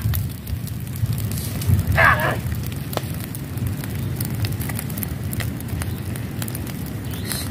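Grass fire burning: a steady low rush with many small crackles. A short shout cuts in about two seconds in.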